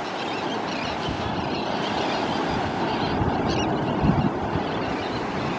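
Steady wash of small surf on the beach mixed with wind on the microphone, with low buffeting rumbles and a stronger gust thump about four seconds in.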